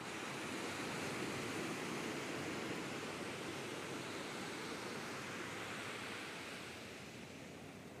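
Ocean surf breaking and washing up a sandy beach: a steady rush that swells over the first couple of seconds and eases off near the end.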